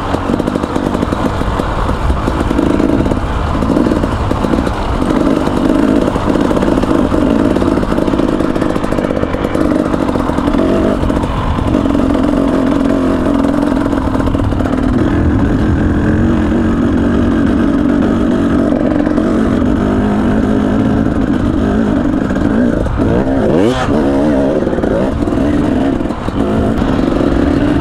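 A KTM 300 EXC's single-cylinder two-stroke engine running under load as the dirt bike is ridden over rough mountain trail, mostly at steady revs with a quick rev rise near the end.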